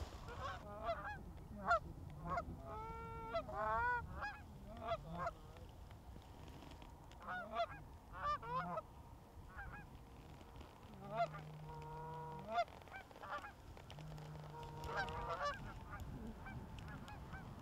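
Canada geese honking in bursts of short, rising-and-falling honks and clucks, in groups with short lulls between them, and a few longer drawn-out notes in the second half.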